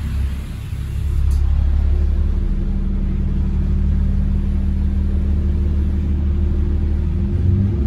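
Bus diesel engine heard from inside the saloon. It gets louder over the first second as it pulls harder, then runs under load at a steady pitch.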